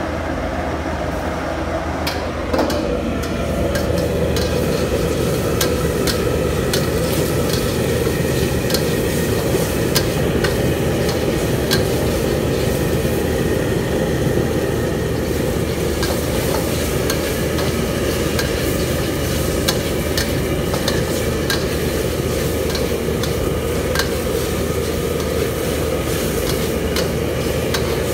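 Chicken and chopped tomatoes frying in oil in a stainless steel wok, sizzling steadily, while a metal spatula scrapes and taps against the wok as it is stirred. The sizzle grows louder about two and a half seconds in, as the chopped tomato goes into the hot wok.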